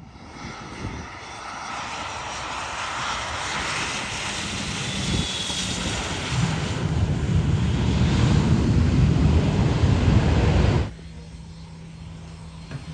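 Cessna Citation X business jet's twin turbofan engines, a steady jet roar that grows louder as it lands and is loudest and deepest after touchdown on the runway. The roar cuts off abruptly near the end, leaving a much quieter steady hum.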